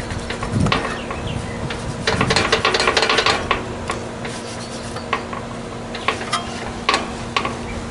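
Scraping and rubbing of hand work on the air conditioner's metal parts during cleaning. There are scattered clicks, and a fast run of strokes from about two to three and a half seconds in. A faint steady hum runs underneath.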